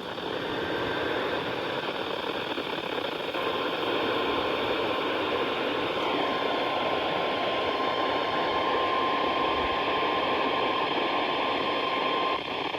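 Weather radio receiver hissing with heavy static from weak reception. A steady single tone sounds faintly under the static from about three seconds in until shortly before the end, the weather radio warning alarm tone that comes before an alert.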